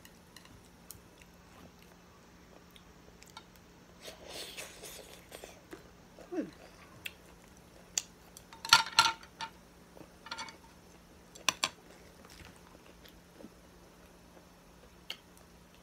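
A person chewing a mouthful of rice noodles, with scattered short smacks and clicks; the loudest cluster of mouth noises comes about nine seconds in.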